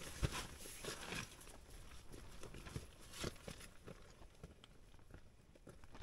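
Faint rustling of tent fabric with scattered soft footsteps and knocks as someone climbs out through a tent door; the sharpest knock comes just after the start and another about three seconds in.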